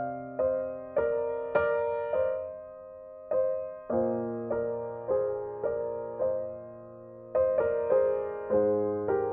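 Background piano music: slow, gentle notes, each struck and fading away, with a brief pause between phrases near the middle.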